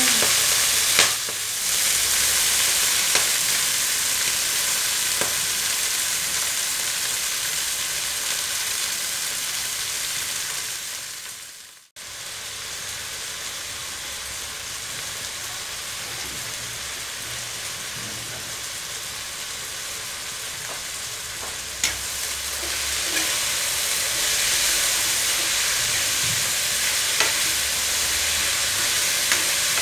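Chopped vegetables and gundruk sizzling steadily as they fry in hot oil in an aluminium kadai, with a few sharp clinks of metal against the pan. The sizzle cuts out about twelve seconds in, comes back quieter, then grows louder again for the second half.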